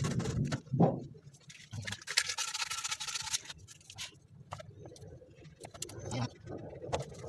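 PVC water pipe and fittings being handled: a knock near the start, a rasping scrape lasting about a second and a half about two seconds in, then scattered light clicks and taps.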